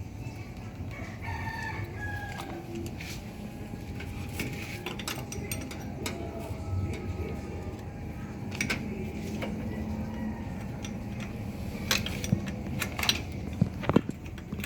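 A steady low rumble with short gliding calls in the first few seconds. Several sharp clicks come in the last few seconds and are the loudest sounds.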